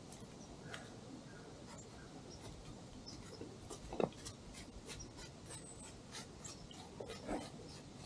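White-tailed deer's hooves rustling and crunching through dry fallen leaves in quick, irregular steps, with one sharper knock about halfway through.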